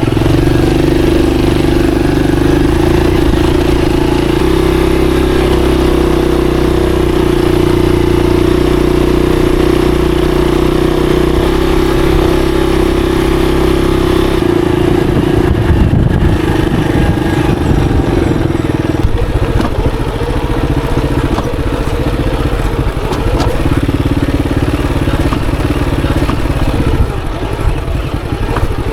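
Monarch Axis 125 motorcycle engine running at a steady pitch for about fourteen seconds, then dropping and turning uneven as the throttle comes off and on.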